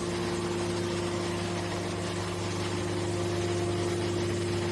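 Hydraulic power unit of a scrap metal baler running steadily: an even, unchanging machine hum with a low drone and a steady higher tone.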